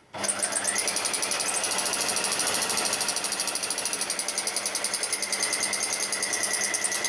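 Electric sewing machine stitching a straight seam through two layers of cotton: it starts just after the beginning, its motor whine rising briefly as it gets up to speed, then runs at a steady speed with a rapid, even needle rhythm.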